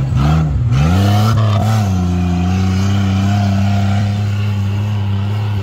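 Off-road 4x4 truck's engine revving: the revs rise and fall a few times in the first two seconds as it sets off, then hold steady and high while it climbs a grassy slope.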